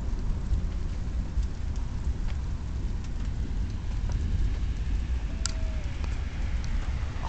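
Rain falling steadily, with scattered drips ticking and a low rumble throughout. Near the end a car starts to approach along the wet street.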